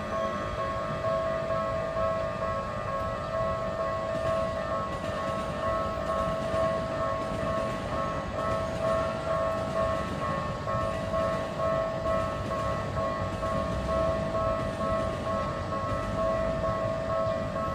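Japanese railway level-crossing warning bell (Keikyu line crossing) ringing continuously, an electronic 'kan-kan' tone repeating steadily, with low background rumble.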